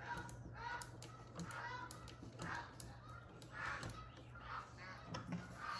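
Repeated bird calls, short honking or cawing cries about two a second, over a steady low hum.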